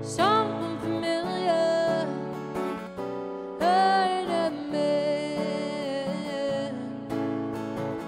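Solo acoustic guitar strummed in steady chords under a woman's singing voice, with two long sung phrases: one from just after the start to about two seconds in, and another from about three and a half to nearly seven seconds in.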